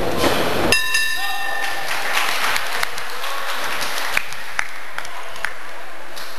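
Boxing round bell ringing once, about a second in, for about a second, marking the end of the round. Crowd noise and applause with a few sharp claps run under it.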